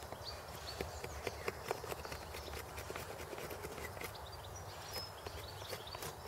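A hand-held stone flake cutting and scraping a thin peeled wooden stick, giving irregular light clicks and scrapes of stone on wood.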